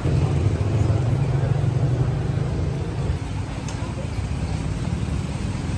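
Busy street ambience: a steady rumble of road traffic with people's voices in the background.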